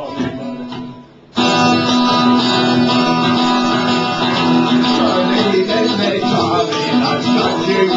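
Live band starting the instrumental introduction of a folk-punk song, with strummed guitars; the music comes in suddenly and loud about a second and a half in.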